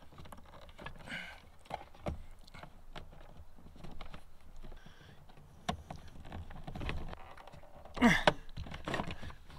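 Clicks, taps and rubbing from thick 4-gauge solar cable being pushed and worked by hand through plastic cable glands into a solar combiner box. A brief louder sound comes near the end.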